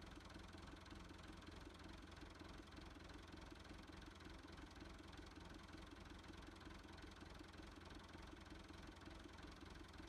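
Near silence with a faint, steady engine-like hum that pulses evenly, like a motor idling some way off.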